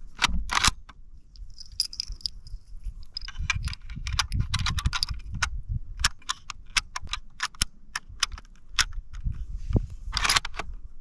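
Springfield M1903A4 sniper rifle being loaded by hand: metallic clacks of the bolt, then a string of clicks and scrapes as .30-06 cartridges are pressed one by one into the magazine. The bolt is run home with a loud clatter about ten seconds in. A low rumble of wind on the microphone runs underneath.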